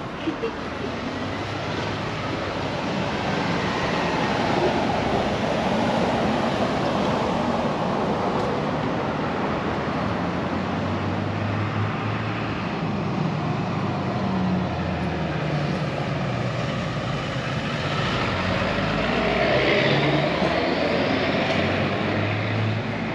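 Street traffic: a steady wash of road noise with vehicles passing, swelling to its loudest a little past three-quarters of the way through.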